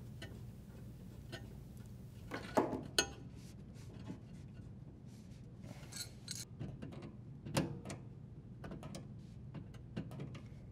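Brass water supply line fitting being threaded onto a dishwasher water inlet valve and then gripped with channel lock pliers: scattered metallic clicks and short scrapes, the loudest a little over two seconds in.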